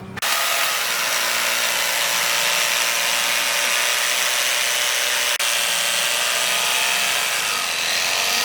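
Electric power tool, most likely a grinder, cutting into the steel of a knife being made from a brake disc, running steadily after starting abruptly about a quarter second in.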